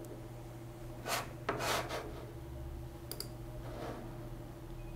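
Quiet room tone with a steady low hum, broken by a few soft short clicks and rubs of a computer mouse being moved and clicked on a desk.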